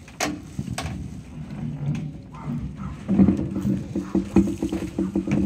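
Knocks and shuffling of people moving about on a wooden stage platform. Two sharp knocks come in the first second, then a run of quick, dull thumps from about three seconds in.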